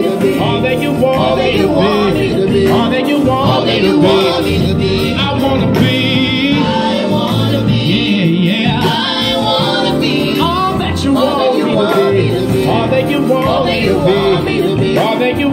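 Live gospel song: a male lead singer and mixed backing singers singing the refrain together over instrumental accompaniment.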